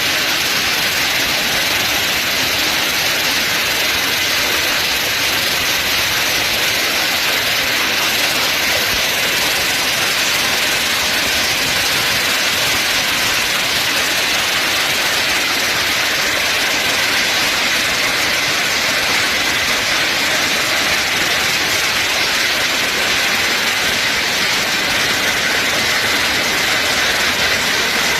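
Windstorm with hail and heavy rain: a loud, steady rush of noise that keeps up without a break.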